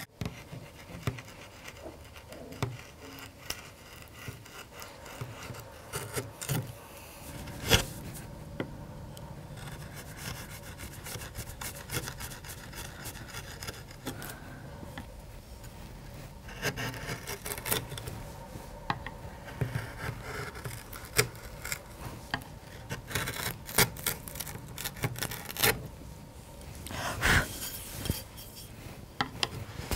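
Hand carving gouge cutting into walnut, scooping out a spoon bowl: irregular scraping strokes as shavings come off, with a couple of sharper clicks.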